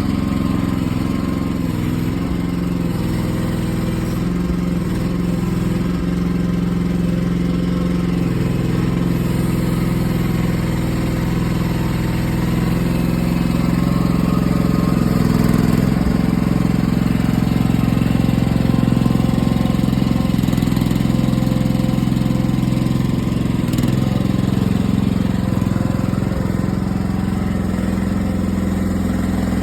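Engine of a Chinese-made mini excavator running steadily, with a slight rise in level between about 14 and 20 seconds in.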